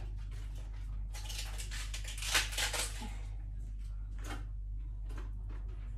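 Pieces of raw white cabbage being handled and dropped into a Thermomix's stainless-steel mixing bowl: a burst of leafy rustling and crunching about a second in, then a few short knocks, over a steady low hum.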